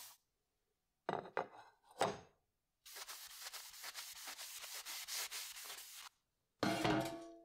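A cloth rubbing a steel knife blade on a wooden table, wiping it clean with isopropanol: about three seconds of quick scrubbing strokes, after two short handling knocks. Near the end, a louder clatter with a brief metallic ringing tone.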